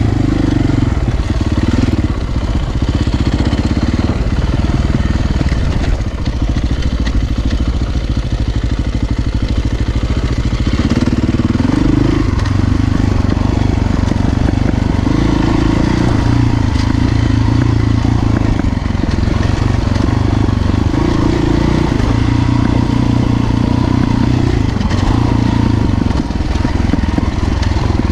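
Dirt bike engine running under way, its note rising and falling as the rider works the throttle over rough farm tracks.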